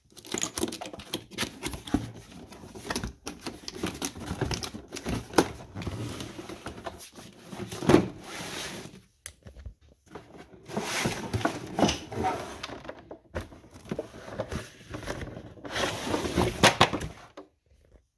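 An angle grinder's cardboard box and packaging being opened and unpacked by hand: rustling and scraping with scattered clicks and knocks, the sharpest knock about eight seconds in.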